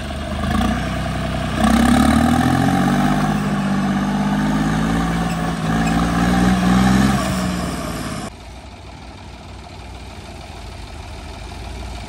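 Modified tractor's engine revving hard under load as it lifts its front wheels off the ground in a wheelie; the note rises and holds, then drops sharply to a quieter idle about eight seconds in.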